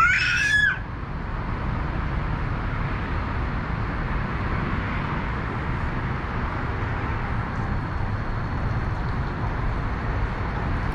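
Steady low rumble of downtown city traffic and background hum. At the very start there is a short high-pitched squeal lasting under a second.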